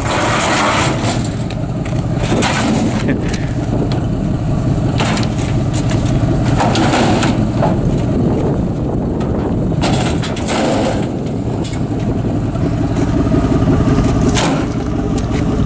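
1989 Ford F-150 pickup driving, heard from inside the cab: steady engine and road rumble with repeated rattles and clunks.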